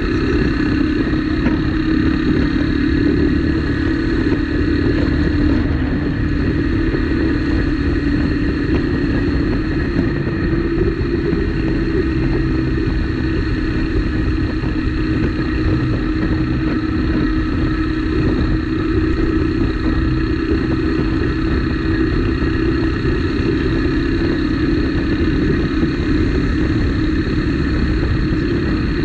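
Motorcycle engine running steadily at cruising speed, heard from on board the bike, over a low rumble of wind and road noise.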